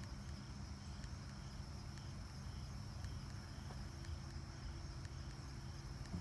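Quiet woodland ambience: a steady high insect drone with a softly pulsing call over a low rumble. Faint small rustles and ticks of leaves and dirt are heard as the hand-drill fireboard is handled.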